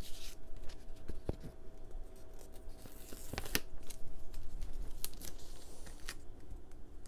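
Paper crinkling and tearing as a washi sticker strip is handled and peeled, with scattered small clicks and crackles.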